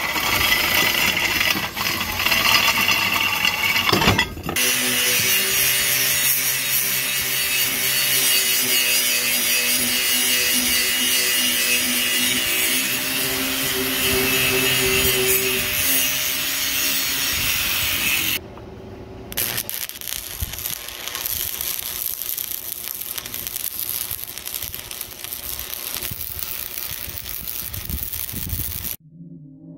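Angle grinder running steadily against a steel square tube, a dense grinding hiss over a steady motor whine. After a short break at about 18 seconds, a stick-welding arc crackles and hisses for about ten seconds.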